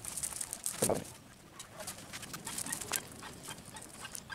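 Wet nylon cast net being shaken and pulled open over a sack, with the small live fish caught in it flapping and slapping: a run of quick rustles and clicks. A brief louder call about a second in.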